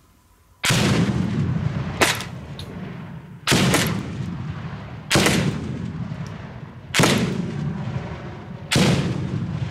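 Six-shot revolving 40mm grenade launcher being fired in quick succession, with its grenades exploding downrange: six loud, sharp reports about every one and a half to two seconds, each trailing off in a low rumble.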